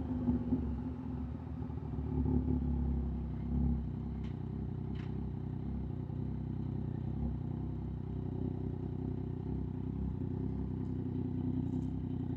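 Yamaha MT-09's three-cylinder engine running steadily under way, fitted with an aftermarket exhaust, with a few brief swells in the first few seconds.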